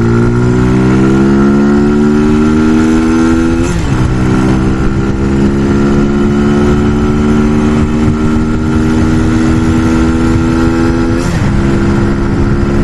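Brixton Felsberg 125's single-cylinder four-stroke engine pulling under acceleration, its pitch climbing steadily; it drops abruptly with an upshift about four seconds in and again near the end, then climbs again, with wind rushing past.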